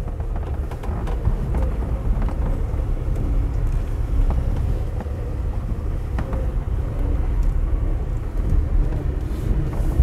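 Car driving slowly on a dirt road: a steady low rumble of engine and tyres, with a few light knocks.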